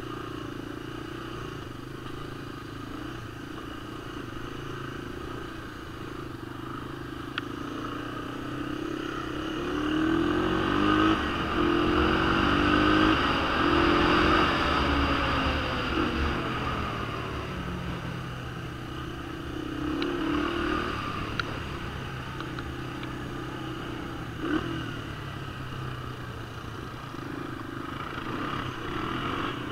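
Honda ATC 250SX three-wheeler's four-stroke single-cylinder engine running while riding. It speeds up and gets louder for several seconds near the middle, then settles back to a steady run, with a few sharp knocks along the way.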